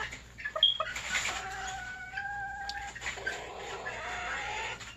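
Serama bantam chickens calling: a few short clucks, then two long drawn-out calls of about a second and a half each, the second rising in pitch near its end.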